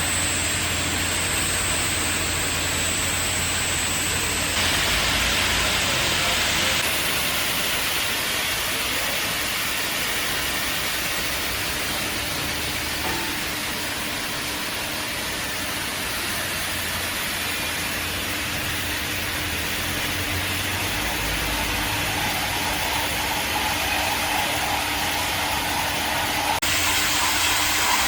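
Magnetic tin can washing machine running: a steady hiss from its high-pressure water spray nozzles over a machine hum. The sound shifts abruptly a few times.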